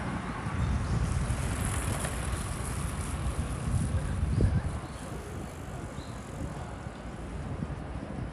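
Outdoor street ambience: a low, uneven rumble of traffic with some wind on the microphone, swelling to a peak about four and a half seconds in and then easing.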